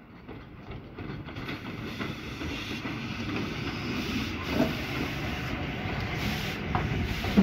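Saddle-tank steam locomotive running slowly past at close range, its steam hissing and the sound growing louder from about a second in. A sharp knock comes near the end.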